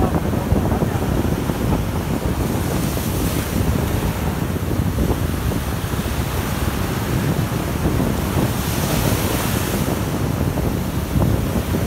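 Sea waves breaking and washing up the beach, with wind buffeting the microphone as a steady low rumble. The hiss of the wash swells about three seconds in and again near nine seconds.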